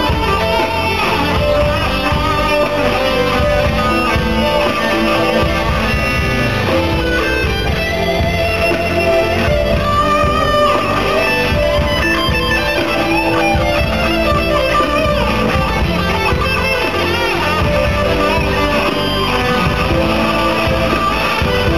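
Live band music with guitar prominent, played through an arena sound system and recorded from the audience.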